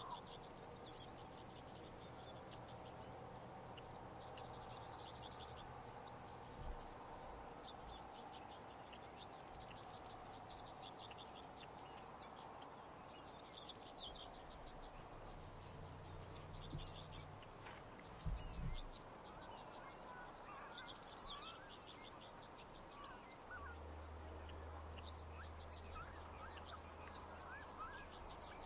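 Songbirds singing faintly, short high chirping phrases repeating every couple of seconds over a quiet outdoor hiss. A few brief knocks; the loudest comes about two-thirds through.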